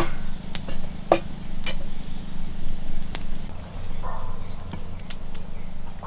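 Cleaver and whole fish handled on a wooden log chopping block: several sharp taps and clicks, then about four seconds in a short scrape of the blade across the fish's scales.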